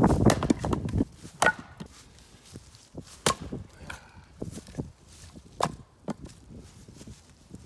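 Fiskars splitting maul striking seasoned red elm firewood rounds: three sharp strikes about two seconds apart, with lighter knocks of wood between. A loud clatter fills the first second.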